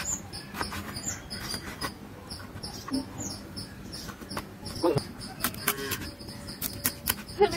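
Kitchen knife chopping eggplant and drumstick on a plastic cutting board: irregular sharp taps of the blade striking the board. A high, rapidly repeating chirping runs steadily behind it.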